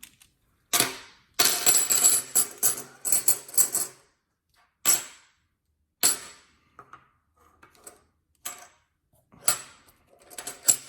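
Silver Peace dollars clinking against one another as they are handled: a dense run of clinks in the first few seconds, then single clinks about a second apart, each with a high metallic ring.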